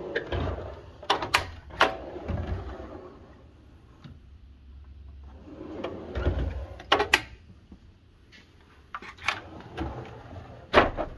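Steel toolbox drawers rolling open and shut on their slides, with several sharp metal clacks as they stop.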